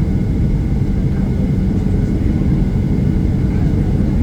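Boeing 737-800 cabin while taxiing: a steady low rumble from the CFM56-7B engines at taxi thrust and the cabin air, with no sudden events.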